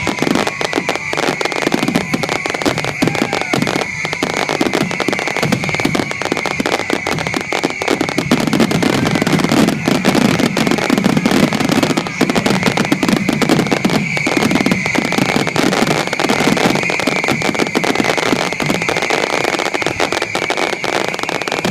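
Fireworks finale: a dense, continuous barrage of bursting shells and crackling, with a steady high tone running over it.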